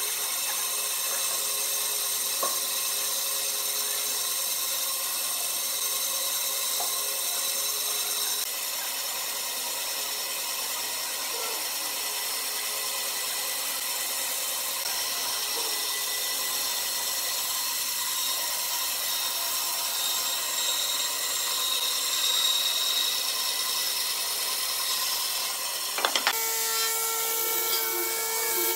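Band saw running and cutting a curve through a thick wooden plank, a steady machine noise with the blade working through the wood. About 26 s in it switches sharply to an angle grinder with a sanding disc running on the curved wooden piece, a steadier, higher whine.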